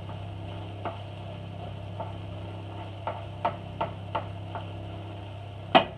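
Steady low electrical hum, with a handful of faint, irregular clicks and one sharper click shortly before the end.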